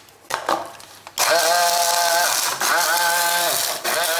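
A hand blender's motor on a mini chopper bowl grinds roasted whole spices with salt and sugar into a powder. After a couple of light clicks, it starts about a second in with a rising whine, runs steadily, winds down, and starts again near the end.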